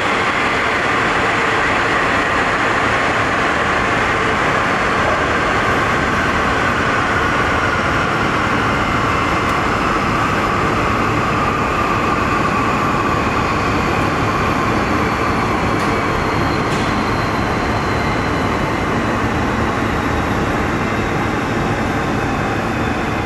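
Boeing 787-10's Rolls-Royce Trent 1000 jet engines winding down after shutdown at the gate: a steady rushing noise with whines that slowly fall in pitch.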